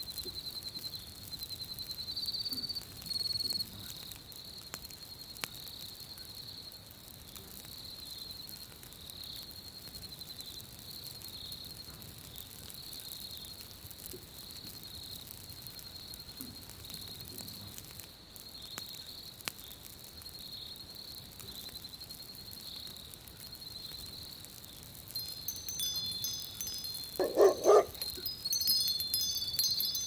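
Wind chimes tinkling, with several high ringing tones clearest over the last five seconds, over a steady, wavering high-pitched trill. A brief loud sound of a few quick pulses comes near the end.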